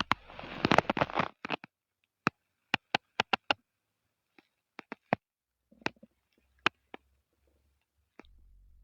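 A man's stomach gurgling: a dense bubbling, rustling burst in the first second or so, then a string of sharp separate pops and clicks over the next several seconds.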